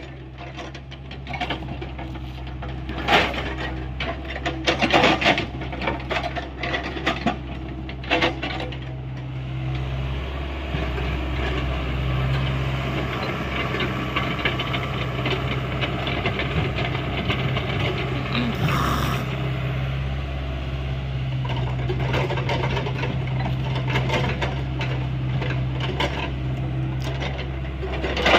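Hyundai 85A excavator's engine running steadily with its hydraulic rock breaker at work. Scattered knocks and scrapes of steel on rock come first. From about ten seconds in there is a continuous rapid hammering rattle.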